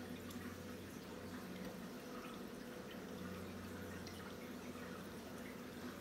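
Reef aquarium water trickling and dripping, with scattered small ticks and pops over a steady low hum.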